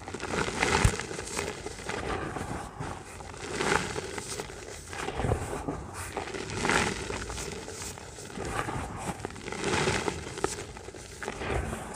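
Lumps of wet grey dirt crumbling and crunching as hands squeeze them in a bucket of water, gritty pieces pattering back into the mass. The crunching comes in repeated squeezes about every one to two seconds.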